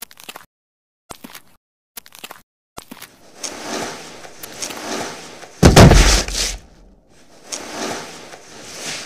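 Cartoon fight sound effects: a few short clicks, then stretches of hissy noise. A loud, heavy impact with a deep boom lands a little past halfway.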